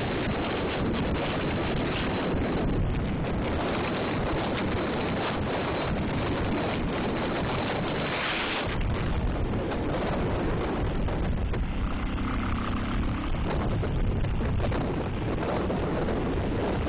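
Car driving at about 100 mph: a steady rush of wind and road noise, with wind buffeting the microphone.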